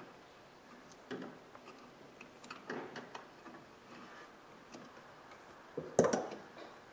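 Small clicks and rattles of a plastic wiring connector being worked out of its mounting clip and unplugged under a truck's dashboard, with a sharper, louder click about six seconds in.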